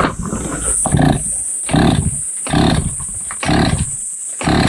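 Petrol brush cutter with a metal tipped-saw blade cutting weeds, its engine surging about once a second in five or six bursts.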